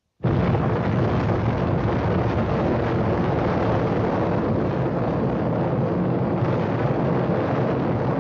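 Sound effect of a nuclear explosion: a loud, dense blast noise that cuts in suddenly a moment in and holds at an even level without dying away.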